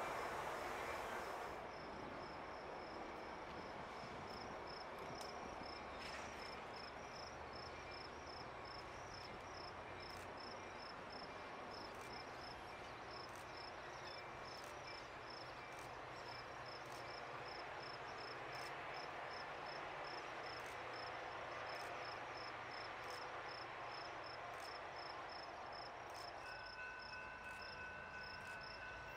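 Faint, regular insect chirping, a steady string of high little pulses, over low background hum, as the last noise of a passing train dies away in the first second or so. Near the end a faint steady two-note tone comes in.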